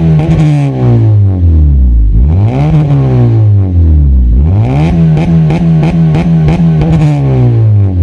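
Honda Civic FD exhaust with a Greddy axle-back muffler and the resonator deleted, as the engine is free-revved. The note falls from a rev, rises and drops in a quick blip about two and a half seconds in, then climbs again and is held for a couple of seconds before falling back near the end.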